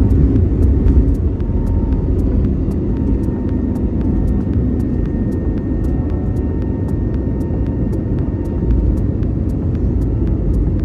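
Jet airliner's engines at takeoff power, heard inside the cabin over the wing: a loud, steady rumble with a faint steady whine, as the aircraft accelerates down the runway and lifts off. Faint light ticks come about three times a second throughout.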